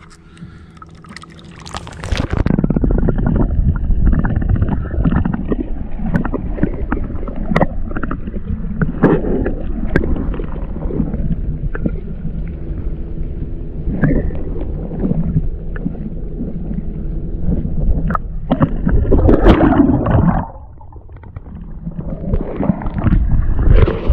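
Muffled gurgling and sloshing of water heard by a camera's microphone held underwater. It starts about two seconds in, drops away sharply near the end, then swells again briefly.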